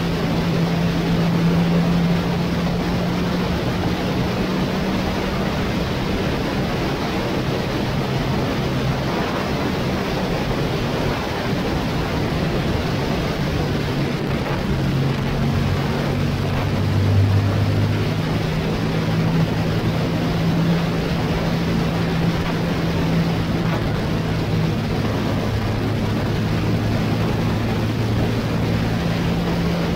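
Motorcycle riding at road speed: a steady rush of wind on the microphone over the engine's low hum, whose note steps lower about halfway through.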